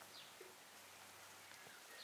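Near silence: faint outdoor ambience with one short, high, falling bird chirp a fraction of a second in.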